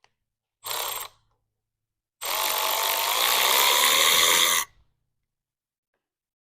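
A small power tool motor runs in two bursts, a short one under a second in and a longer one of about two and a half seconds, its whine rising slightly during the longer run.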